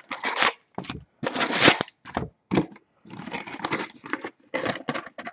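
Hands pulling trading card packs out of a cardboard Allen & Ginter hobby box and setting them down in stacks: an irregular run of short rustles, scrapes and light knocks of cardboard and pack wrappers, with brief pauses between handfuls.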